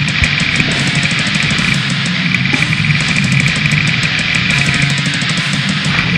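Loud, heavily distorted heavy metal music: a dense wall of guitar with fast, rapid-fire drumming and cymbals.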